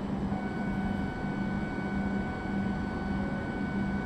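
Steady mechanical hum of Shinkansen railway surroundings, with a low tone pulsing on and off about twice a second and a thin high whine that comes in about a third of a second in.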